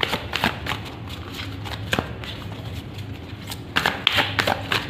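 A deck of oracle cards being shuffled by hand: quick papery clicks and slaps as cards are passed between the hands, busiest near the start and again in the last second.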